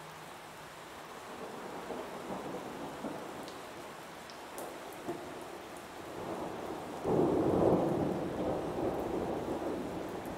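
Heavy water splashing and churning as a hippo lunges through shallow water. A sudden, much louder surge of splashing comes about seven seconds in, then dies down.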